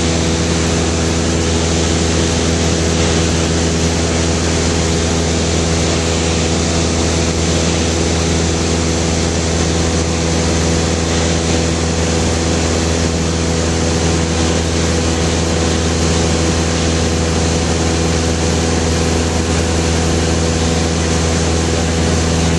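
Light propeller aircraft's engine and propeller heard from inside the cabin: a steady, unbroken drone in level flight.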